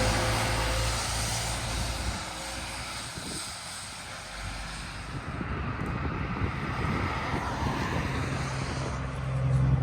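Diesel locomotive and train passing: a low engine drone, loudest in the first two seconds, then a steadier, quieter rumble of the train rolling by.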